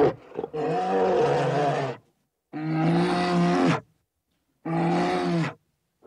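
Polar bear calling: a series of drawn-out, pitched vocal calls, each about a second long, separated by short silent gaps. Three full calls follow the tail of one at the very start.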